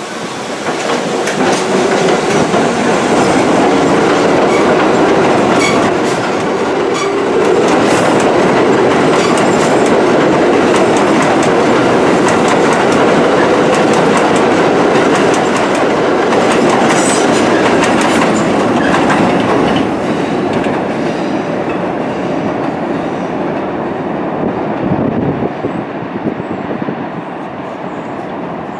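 Bombardier R62A subway train running out along an elevated steel structure, its wheels clacking over the rail joints. The noise is loud and steady for most of the time, then fades in the last third as the train moves away around the curve.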